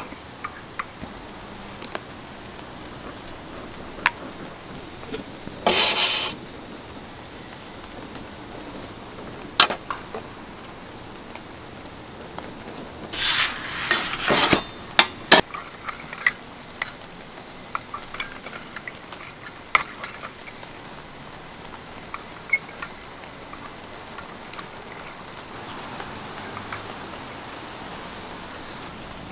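Dalgona being made: a wooden chopstick stirring and tapping in a small metal ladle and metal tools clinking, in scattered sharp clicks. Two louder scraping noises stand out, a brief one about six seconds in and a longer one around thirteen to fifteen seconds in.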